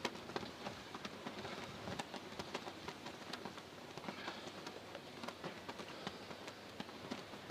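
Dense irregular crackling patter over a steady hiss, typical of wind-driven snow pelting the camcorder and its microphone in a blizzard.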